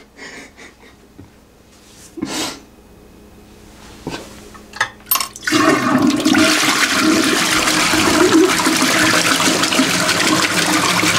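A few faint knocks and clicks, then about five and a half seconds in a toilet flushes: loud rushing, gurgling water that keeps going steadily to the end.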